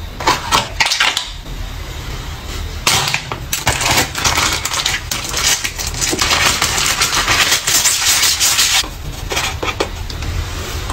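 Close handling noises of skincare products: crinkling, rubbing and scratchy crackling with scattered clicks and taps. The crackling is densest through the middle.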